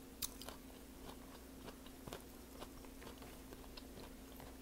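Close-up mouth sounds of someone chewing a mouthful of Burmese tea leaf salad, faint, with scattered crunches and wet mouth clicks, the sharpest about a quarter-second in.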